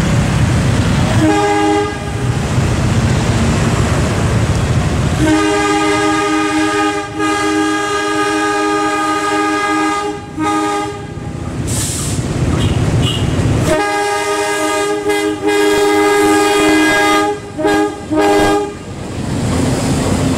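CC201 diesel-electric locomotive sounding its horn: a short toot about a second in, then two long blasts of about five seconds each, with the locomotive's low engine rumble between them as it passes close by.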